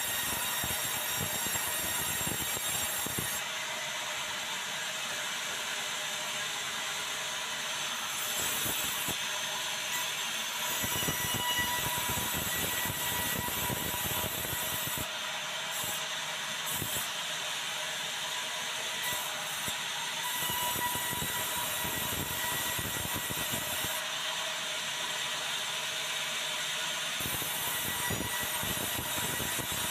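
Sawmill band resaw running as white meranti planks are fed through it and ripped into boards, with a steady mechanical whine and rattle. A heavier low rumble comes and goes in stretches of several seconds.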